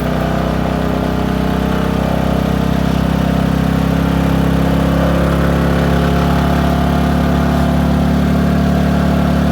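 Mech Marvels 2000 W inverter generator's engine running steadily under load from two battery fast chargers, its speed and loudness rising slightly about halfway through as it takes up the load.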